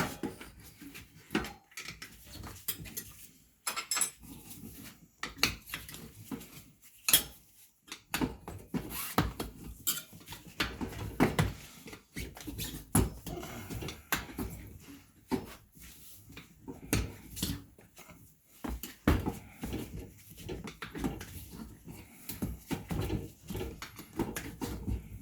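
Steel tire irons clinking and knocking against a spoked motorcycle wheel rim as the tire is levered off the rim, a string of irregular metallic knocks and scrapes.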